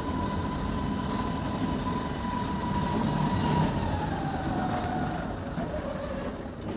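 A machine's steady whine over a low rumble. About four seconds in, the whine slides down in pitch and fades near the end.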